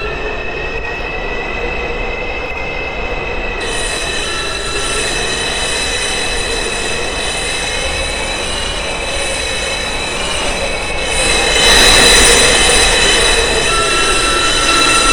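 New York City subway train running between stations, its wheels squealing in several held high tones over a steady rumble, with a tone that glides up and down; it gets louder about twelve seconds in.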